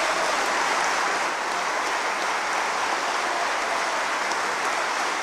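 Large audience applauding steadily: many hands clapping at once in a dense, even patter.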